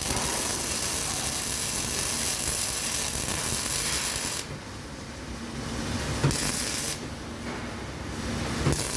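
Electric arc welding: the arc runs with a steady hiss for about four and a half seconds, then stops. It is struck again twice, briefly, with a small knock each time.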